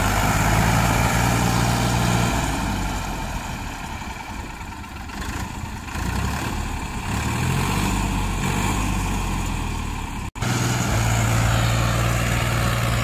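Compact farm tractor's diesel engine working hard, hauling a heavily loaded trolley through deep mud. It eases off for a few seconds in the middle, picks up again, and the sound cuts out for an instant about ten seconds in.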